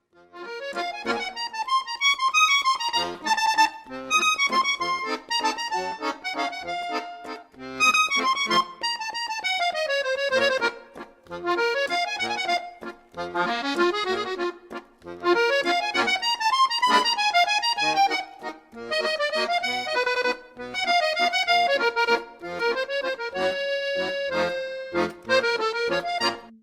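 Instrumental music: a flowing melody over short, regular bass notes.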